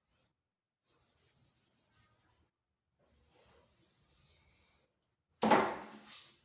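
Cloth wiping over the refrigerator's outer surface to dry it, two faint stretches of rubbing. A sudden loud thump about five seconds in.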